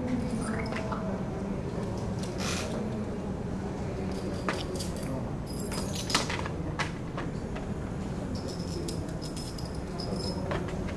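Small steel bolts and nuts clicking and clinking as they are handled, picked from a plastic tray and threaded together by hand. The clinks are scattered, with a cluster of light metallic clinks near the end, over a steady low room hum.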